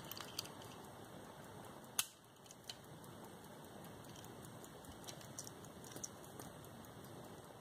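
Light clicks and taps of a gold hunter-case pocket watch being handled, its front lid swung shut, over a faint steady hiss. The sharpest click comes about two seconds in, with a few lighter ones scattered through the rest.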